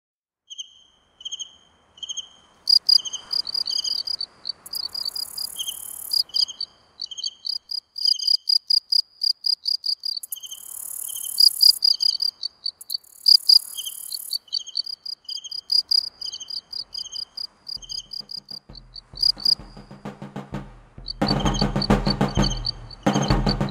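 Rhythmic high-pitched chirping pulses at two pitches, with a few short bursts of hiss. From about 18 seconds in, a low rumble with a steady hum joins and grows louder.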